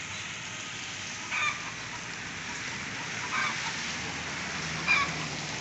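An animal calling with short, repeated calls, one about every one and a half to two seconds, over a steady hiss of water.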